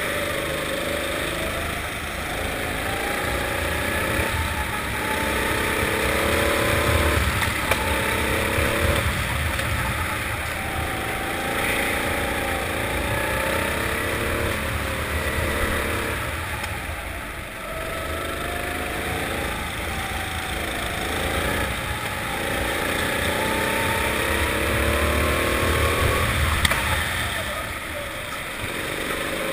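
Four-stroke indoor rental kart engine heard on board, revving up along each straight and dropping back off the throttle for the corners, over and over.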